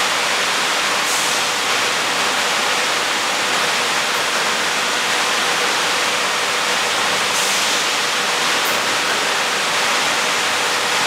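Steady factory noise in an AAC block and panel plant: an even rushing hiss with a faint steady hum under it, unchanging throughout.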